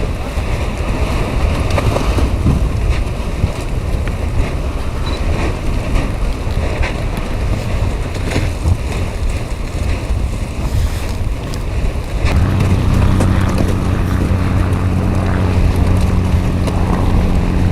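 Strong wind buffeting the microphone, rough and crackly. About twelve seconds in, a steady low motor hum joins it and holds.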